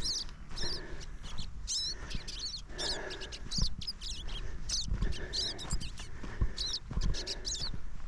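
Small birds chirping in quick, short, high squeaky calls, several a second, with the dull thump of footsteps on a woodland trail underneath.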